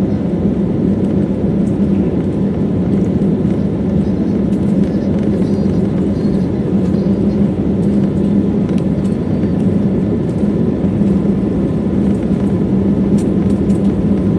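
Jet airliner heard from inside the cabin while it rolls along the runway: a steady, loud engine drone and rumble with a strong low hum that holds level throughout.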